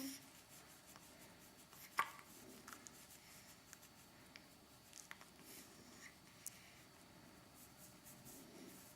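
Near silence with a few faint small clicks; about two seconds in, one short, sharp hiccup from a newborn baby.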